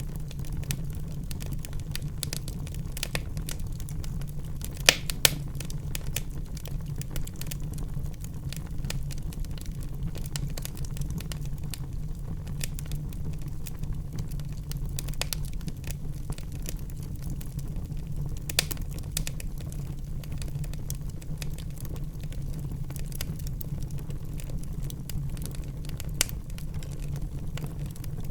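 Wood fire crackling in a fireplace: a steady low rumble of burning with constant small irregular crackles and a few louder sharp pops, two close together about five seconds in.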